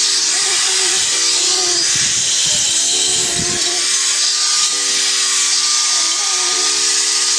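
Handheld angle grinder running under load against the steel square tubing of a window grill, a loud steady grinding hiss with a motor whine that wavers slightly in pitch.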